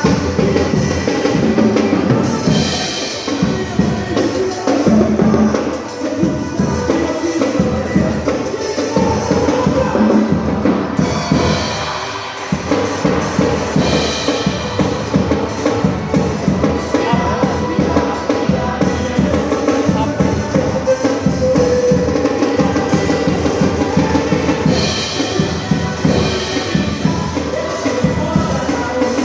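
Drum kit played in time with a recording of the worship song: a steady beat of bass drum and snare over the band's music.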